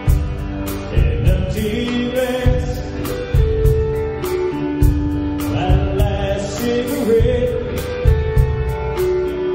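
A band playing a song, with a singer holding long, gliding notes over guitar and a steady drum beat.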